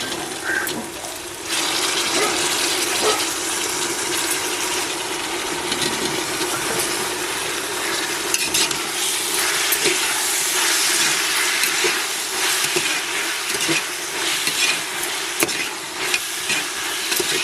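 Mushrooms, green peas, beans and capsicum frying in hot oil with onion in a pressure cooker, sizzling steadily while a ladle stirs them, with scattered scrapes and clicks of the ladle against the pot. The sizzle gets louder about a second and a half in.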